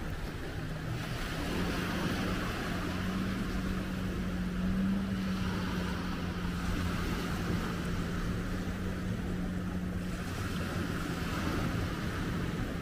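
Long-tail boat's car engine running with a steady drone that grows stronger about a second and a half in, over the rush of water and wind as the boat moves.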